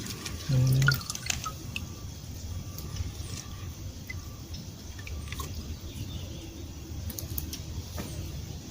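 Scattered small drips and light splashes of water over a steady low background.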